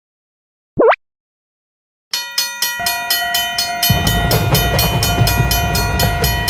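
A short cartoon swoop sound effect, then, after a pause, a railroad crossing bell starts ringing in a quick, steady rhythm with held tones over it, like a train horn. About four seconds in, the low rumble of a passing train joins it.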